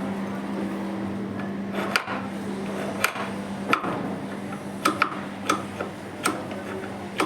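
Hammer tapping on metal machine parts during drill-machine gear and bush assembly: about seven sharp knocks at uneven intervals, some with a brief ring.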